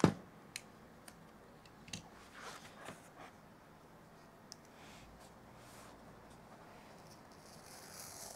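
Cardboard Apple Watch box being handled and opened by hand: a sharp knock at the start, then scattered light clicks and taps, with a soft rustling starting near the end.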